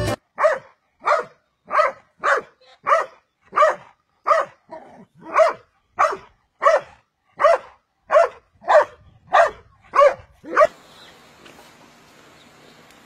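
A large dog barking over and over in an even rhythm, about sixteen short barks a little more than one a second, stopping about two seconds before the end.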